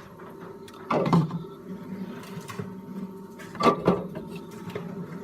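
A few knocks and clatters, as of drinks being loaded into a garage fridge, over a steady low hum: one about a second in and two close together a little after halfway.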